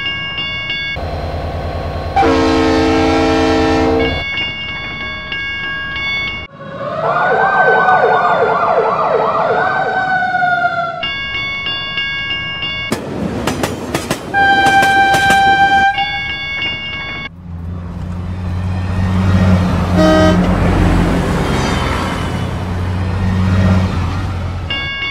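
Dubbed railway sound effects: a steady level-crossing warning tone that keeps coming back between different train horn blasts, a short one about two seconds in, a wavering two-note one around seven to eleven seconds, and another with a few clicks around fourteen seconds. From about seventeen seconds a train rumbles past with its horn sounding, and the warning tone returns near the end.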